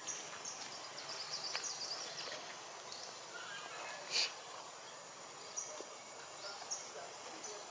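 Forest ambience with repeated short, high-pitched chirping trills from wild birds or insects, and one short louder rasping call about four seconds in.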